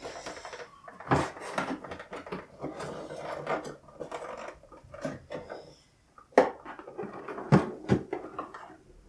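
Objects being handled and set down on a table: scattered rustling and clatter, with a few sharp knocks in the second half.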